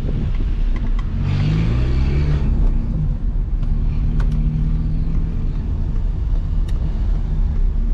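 Peugeot 206's 1.4-litre four-cylinder engine running through a straight-piped exhaust with no catalytic converter and no mufflers; the revs rise about a second in, then settle to a steady drone.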